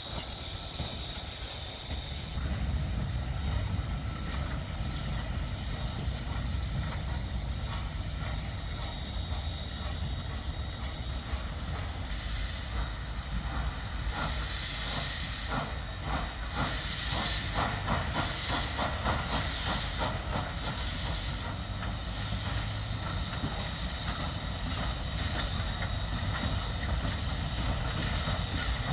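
Ol49 steam locomotive running past, hissing steam over a steady low rumble. About halfway through comes a quick run of evenly spaced clicks.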